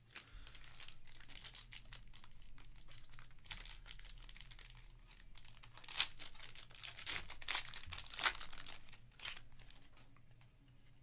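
Foil wrapper of a 2021 Panini Elite Extra Edition baseball card pack crinkling and tearing as it is ripped open by hand, with a few sharp rips about six to nine seconds in.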